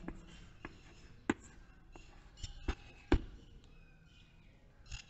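Chalk tapping and scraping on a chalkboard as words are written, with a few short sharp taps, the loudest about a second in and again around three seconds in.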